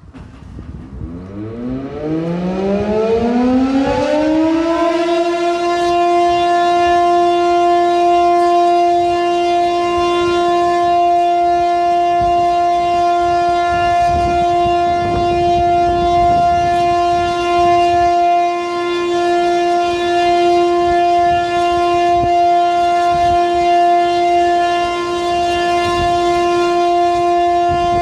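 Municipal motor siren winding up from a low growl over about five seconds, then holding one steady wail. It is sounding the noon time signal.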